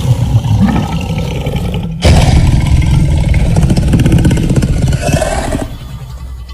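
Sound-designed saber-toothed tiger growling and snarling: harsh, rattling, loud, in segments that cut off abruptly about two seconds in and again near the end.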